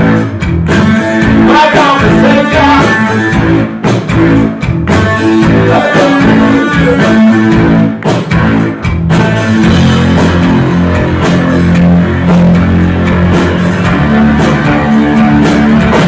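Live rock band playing loud through a venue PA, with a prominent bass guitar line and keyboards.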